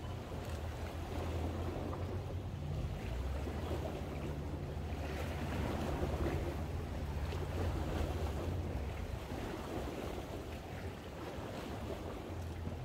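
Small waves lapping against a rocky seawall, with wind on the microphone, under a low steady hum that is strongest through the middle of the stretch.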